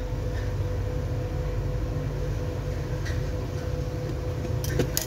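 Steady low mechanical hum, like a fan or motor running, with a faint steady tone above it. A few light clicks come about three seconds in and twice near the end.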